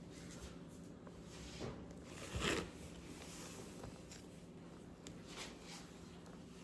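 A knife forced through a block of frozen cheese: a few short rasping cuts, the loudest about two and a half seconds in.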